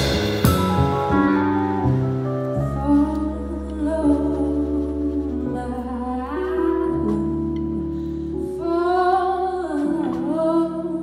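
Live band music: a cymbal crash rings out and fades at the start, then sustained keyboard chords over a held bass line. A singer's voice comes in over the chords about six seconds in and again near the end, with a slow, wavering melody.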